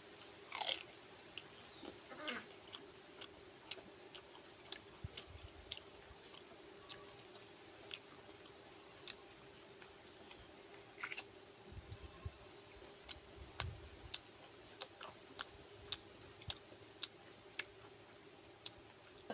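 Close-up chewing and lip-smacking of a man eating rice by hand: many short wet mouth clicks scattered throughout, with a few duller chewing thuds, over a faint steady hum.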